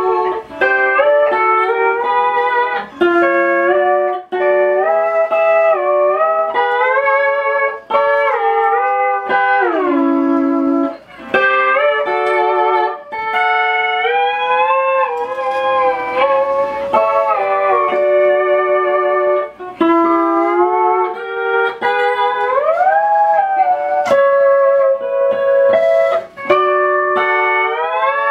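Sho-Bud pedal steel guitar played free-form: picked chords that ring and slide between pitches under the steel bar, with a long downward glide about ten seconds in and an upward glide at about twenty-three seconds, phrases broken by short pauses.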